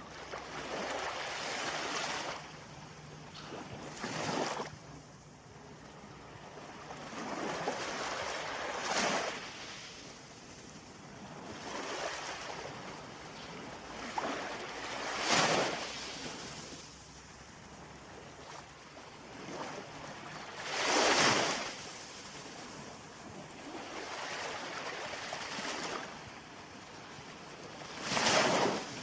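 Ocean surf: waves breaking and washing in, one surge after another every few seconds. The loudest crashes come about 15, 21 and 28 seconds in.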